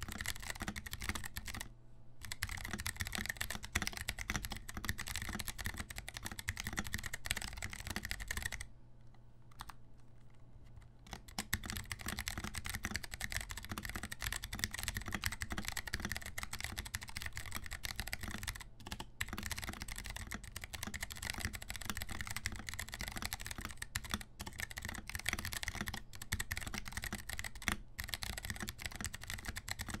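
Continuous fast typing on an NK65 mechanical keyboard with Kailh BOX Mute Jade switches, a silent clicky switch giving a muted click on each keystroke. The typing pauses for about two seconds roughly a third of the way in.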